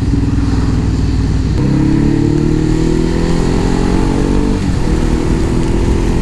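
Motorcycle engine accelerating hard to overtake, heard with wind rush on a helmet microphone. Its note jumps up about a second and a half in and climbs steadily, then drops at a gear change about four and a half seconds in before pulling on again.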